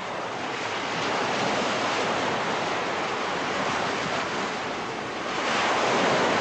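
Sea waves washing steadily with some wind, surging louder near the end.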